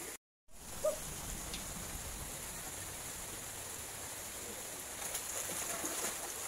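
Steady outdoor night ambience: a constant high-pitched insect chirring over an even, water-like hiss, with a few faint clicks. The sound cuts out to silence for a moment just after the start.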